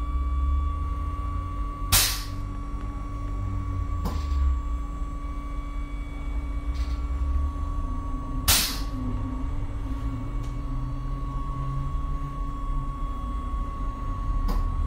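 MAN Lion's City Hybrid city bus heard from inside by the front door: a low rumble with a steady high whine, broken by several short sharp knocks, the loudest about two seconds in and about eight and a half seconds in.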